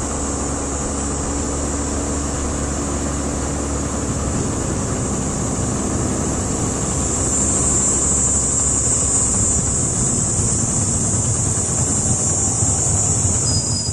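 A steady low rumble, like a motor vehicle, that grows louder in the second half and drops away abruptly at the end, over constant high-pitched chirring of insects.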